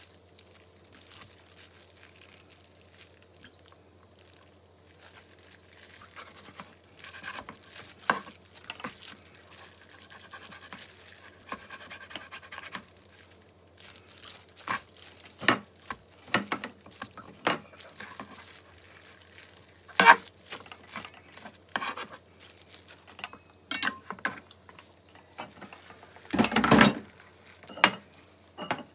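Kitchen knife slicing raw beef on a plastic cutting board: irregular taps and knocks of the blade against the board. Near the end come louder knocks and clanks as the meat is worked in a stainless steel mixing bowl.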